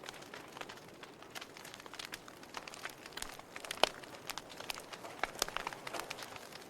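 Wood fire burning in a fireplace, crackling with irregular sharp pops over a soft hiss, one louder pop about four seconds in.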